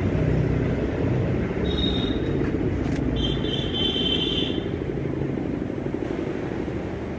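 Steady low engine rumble, like a motor vehicle running nearby. A short high tone comes about two seconds in, then a click and a longer high tone a second later.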